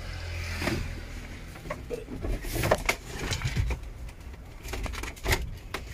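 Scattered knocks and rattles of a metal-framed seat and engine cover being lifted and shifted aside, several separate bangs a second or so apart.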